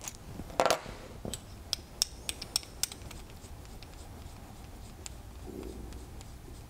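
Small metal-on-metal clicks and light scraping as a pressure gauge is worked loose and unscrewed by hand from an FX Crown air rifle's action. The clicks come in an irregular run over the first few seconds, then the handling goes quieter.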